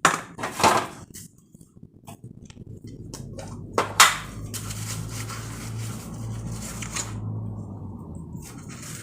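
Dishes and plastic fridge containers clattering and knocking as they are handled and washed at a kitchen sink, with one sharp knock about four seconds in. A steady low hum runs under the second half.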